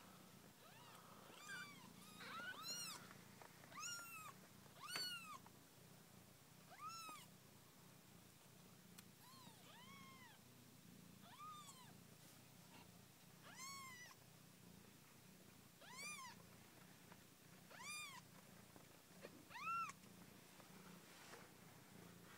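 A newborn kitten mewing: about a dozen short, high-pitched mews, each rising then falling in pitch, at irregular intervals with near quiet between them.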